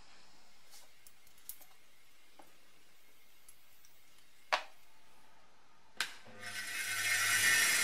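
Light clicks of metal engine parts being handled on a workbench, with a sharper click about four and a half seconds in. About six seconds in a bench grinder is switched on with a click and its motor spins up over about a second to a steady running whir.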